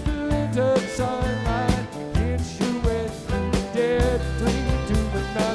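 Live rock band playing: electric bass and guitar over a drum kit, with sustained notes that bend in pitch and a steady beat.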